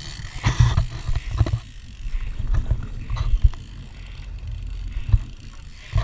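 Wind buffeting a small action camera's microphone in an irregular low rumble, over choppy water slapping a fibreglass boat hull, with a few sharp knocks from the camera being handled.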